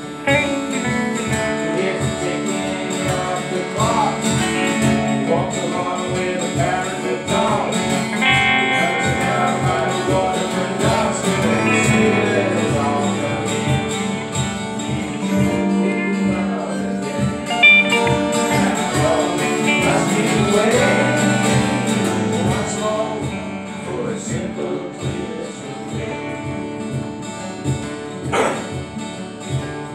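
Acoustic guitars strummed steadily, with a voice singing a folk-style melody over them.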